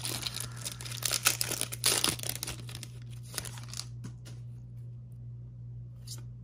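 Foil trading-card pack wrapper crinkling and tearing as the cards are pulled out, dense for about the first two seconds. After that come softer, scattered clicks and rustles as the stack of cards is handled.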